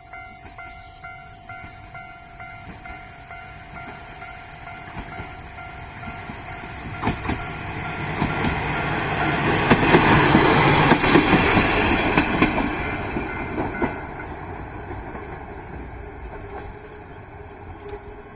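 A diesel railcar passing over a level crossing: its rumble builds, peaks for a few seconds with sharp clicks of wheels over the rail joints, then fades away. The crossing's warning bell keeps ringing at a steady pace under it.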